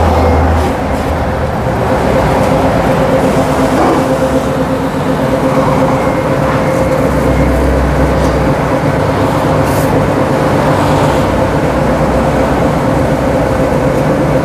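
Hammer flail mower running on a test stand, its rotor of hammer blades spinning at a lower speed than a tractor would drive it: a steady, loud mechanical running sound with a steady hum through it.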